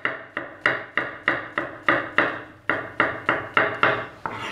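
Kitchen knife slicing vegetables into thin slices on a cutting board: quick, even chopping strokes about three a second, stopping shortly before the end.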